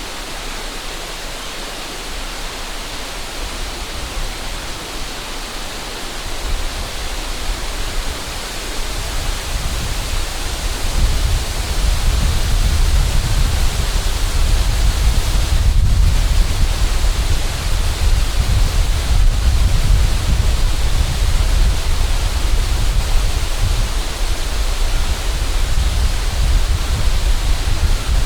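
Steady rushing of a river. From about six seconds in, wind buffets the microphone with a low rumble that grows louder and stays heavy.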